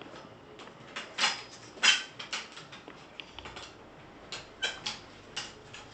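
A series of separate sharp clicks, knocks and light scrapes from hand tools working at a damaged towel-rail wall fixing to get the wall plugs out, the loudest about two seconds in.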